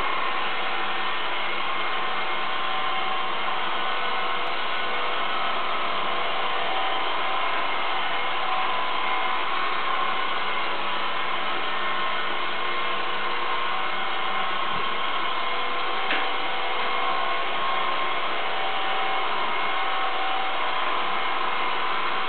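Robot vacuum cleaner running as it drives across a tiled floor: a steady whirr from its suction fan and brushes with a constant whine.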